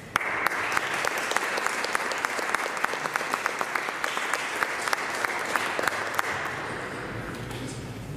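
Audience applauding. It starts suddenly and fades away over the last couple of seconds.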